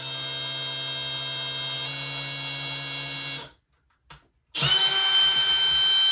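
Cordless drill boring a 1/8-inch hole through a pilot hole in a plastic crate panel. It runs steadily, stops about three and a half seconds in, then runs again louder and higher-pitched near the end.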